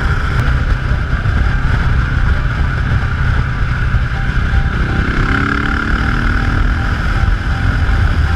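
Motorcycle on the move, heard from a camera mounted on the bike: constant wind rumble with road and engine noise. A rising engine tone lasts a couple of seconds from about five seconds in.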